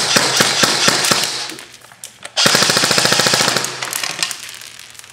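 G&G M4 airsoft electric rifle firing 0.25 g BBs. Quick single shots come about four a second, then a full-auto burst of about a second starts about two and a half seconds in.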